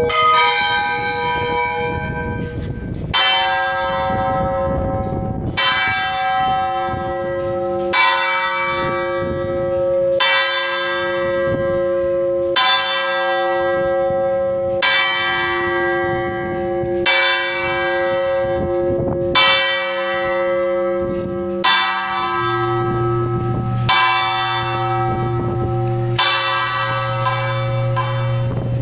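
Tower-clock hammer striking a large bronze church bell, about a dozen evenly spaced strokes a little over two seconds apart. Each stroke leaves a long ringing hum that carries on under the next.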